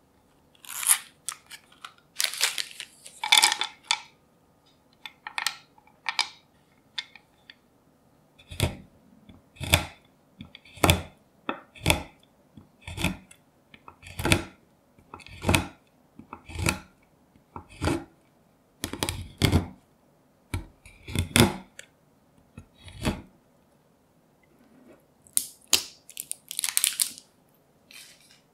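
Packaging of a boxed milk-chocolate bar rustling and crinkling as it is opened. Then a kitchen knife chops through the chocolate bar on a wooden cutting board, about fourteen crisp cuts roughly one a second, each with a low knock of the blade on the board. A short rustle comes near the end.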